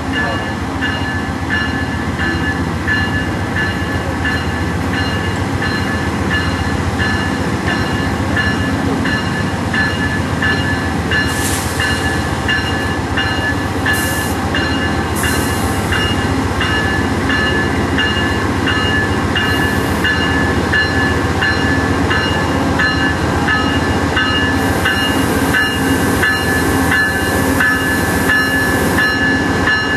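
Amtrak P42DC diesel-electric locomotive's V16 diesel engine running steadily with a high whine as it creeps forward through the switches, growing slightly louder as it nears. There are a couple of short hisses near the middle.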